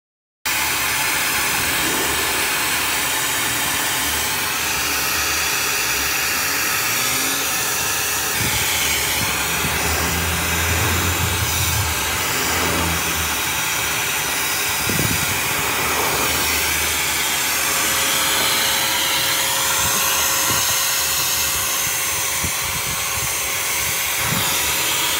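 Steady, loud rushing hiss of air from a running motor-driven machine.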